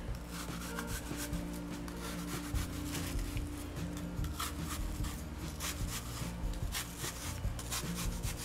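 Kitchen knife slicing into a firm peeled apple half on a plastic cutting mat: a quick series of short cuts about a quarter inch apart, each stopping just before the bottom.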